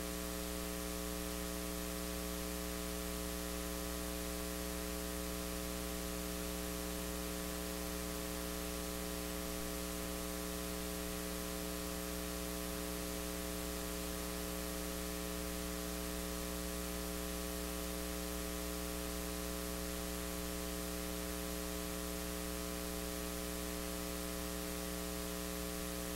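Steady electrical mains hum: a buzz made of many evenly spaced overtones, over a layer of hiss.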